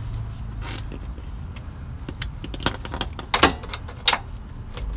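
Hand tools and loose metal suspension hardware clinking and rattling as they are handled, in irregular light clicks, with a few sharper clinks about three and a half and four seconds in.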